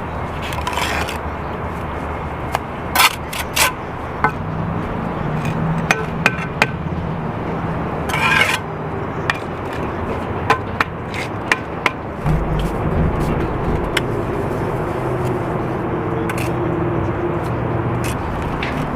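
Bricklaying hand-tool work: a trowel scraping mortar and tapping bricks, heard as irregular sharp clicks and short scrapes over a steady low motor hum.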